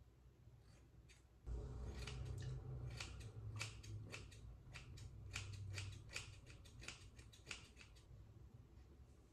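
Scissors snipping through hair as bangs are trimmed: a quick, irregular run of faint snips starting about a second and a half in, over a low hum, thinning to a few single snips near the end.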